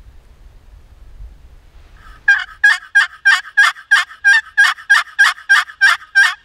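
A hunter's turkey call running a long yelp series: about thirteen loud, evenly spaced yelps at roughly three a second. The series starts about two seconds in and cuts off sharply at the end.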